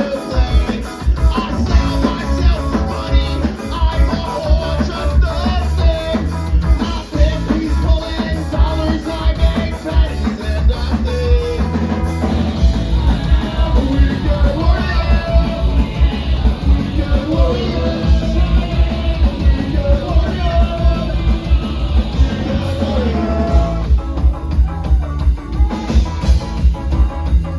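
Punk rock band playing live: electric guitar, bass and drum kit driving a fast steady beat, with a singer's voice over them.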